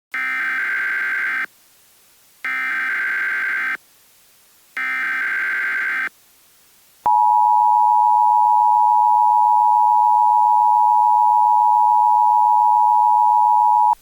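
Emergency Alert System SAME header: three screeching digital data bursts, each about a second and a half long with short gaps between them. Then, about seven seconds in, the EAS two-tone attention signal sounds as one steady harsh dual tone for about seven seconds, signalling that an emergency alert message follows.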